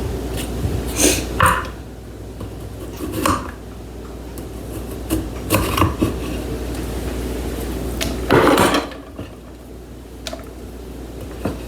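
Kitchen dishes and utensils knocking and clattering in a series of separate short knocks, with a longer, louder clatter a little past eight seconds in, over a steady low hum.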